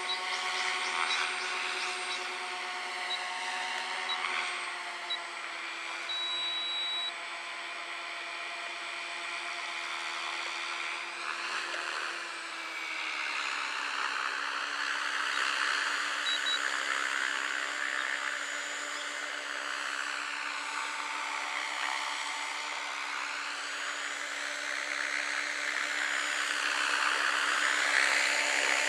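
Electric SAB Goblin 570 RC helicopter running: steady motor and rotor whine with a rushing sound that swells and fades, its pitch held nearly constant by the ESC governor and stepping down slightly about twelve seconds in. A row of short high beeps sounds over it in the first few seconds.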